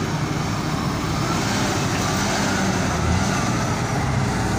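Diesel engine of a large Caterpillar mining haul truck running steadily as the loaded truck drives along, a continuous low drone.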